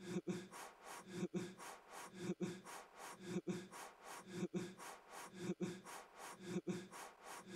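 Repeated hard puffs of breath blown at a trick relighting birthday candle, in an even rhythm of about one a second. Each puff comes with a sharp click and a short low hum.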